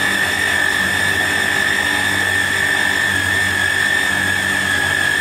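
Electric mini food chopper running at full speed, its motor giving a steady high whine as the blade minces chicken breast.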